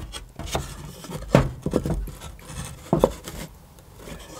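Plywood panels being set and shuffled into place to form a box: a series of light wooden knocks and taps with some rubbing, the sharpest about a second and a half in and again near three seconds.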